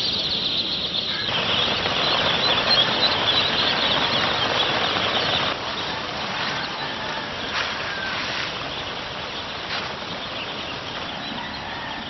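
A huge flock of ducklings peeping all at once in a dense, continuous chorus, easing off a little about halfway through.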